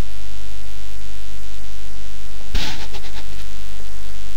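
Loud, steady electrical mains hum picked up by the recording microphone. About halfway through comes one short burst of noise followed by a few quick clicks.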